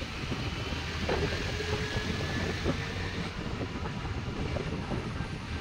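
Steady road and wind noise from a scooter moving through traffic, with a low rumble and no clear engine rhythm.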